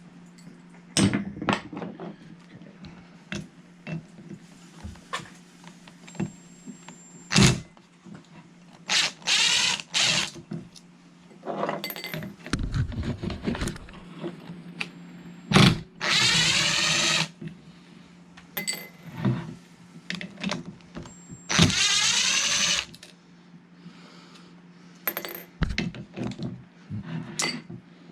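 Several short runs of a power screwdriver or drill-driver, about a second each, backing screws out of a generator's gas regulator, between sharp clicks and clatter of tools and small parts being handled.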